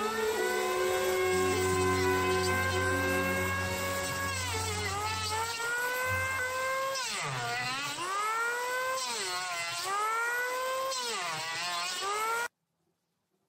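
Corded electric hand planer running and cutting along a hardwood log. Its motor whine dips in pitch several times as the blades bite into the wood and climbs back as the cut frees up. The sound cuts off suddenly near the end.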